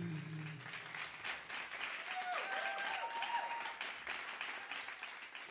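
Audience applauding as a song ends, the last held notes of the music fading out in the first half-second. A whoop or two rises over the clapping a couple of seconds in, and the applause dies away near the end.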